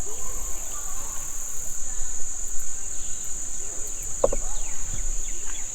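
Insects in the riverside trees and brush keeping up a steady, high-pitched drone.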